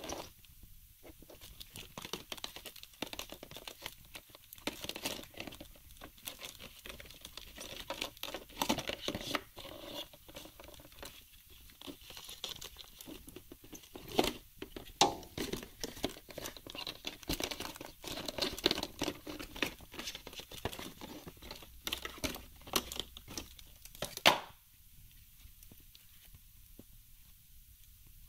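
Cardboard box and paper packaging handled with rubber-gloved hands: irregular rustling, crinkling and sharp clicks and scrapes as the box is opened and its cardboard insert and contents are pulled out. The handling stops a few seconds before the end.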